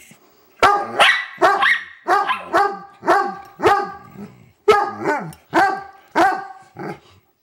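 German shorthaired pointer 'singing': about a dozen short, pitched bark-howls, roughly two a second, each sliding down in pitch.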